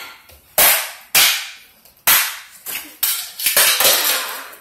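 Pretend gunfire in children's play: a run of about seven sharp, hissing bang-like bursts, irregularly spaced, each dying away quickly.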